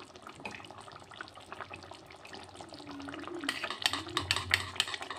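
Metal spoon clinking and scraping against a metal kadai as ghee is spooned into a simmering potato curry, over a faint bubbling of the gravy. The clinks come thicker about three and a half seconds in.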